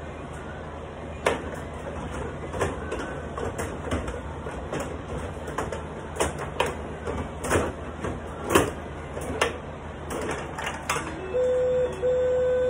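Carrom bubble hockey table in play: the puck and the rod-driven players clacking and knocking at irregular moments, with the rattle of the rods being pushed and spun. Near the end a steady electronic beep starts up, broken into short pieces.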